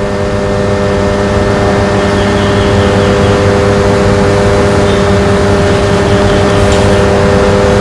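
Steady electrical hum with several fixed tones over a low rumble, from the running switchgear cubicles and their equipment, growing slightly louder over the first couple of seconds.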